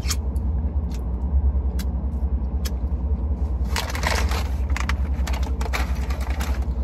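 A paper takeout bag rustles and crinkles in a couple of bursts about halfway through, after a few soft clicks, over a steady low rumble in the car cabin.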